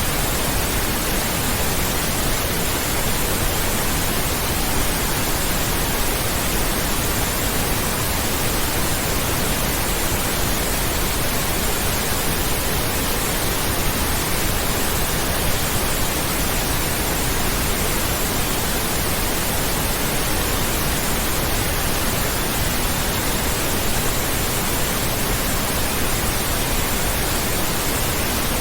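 Pink noise: a steady, unchanging hiss spread evenly from low to high pitches.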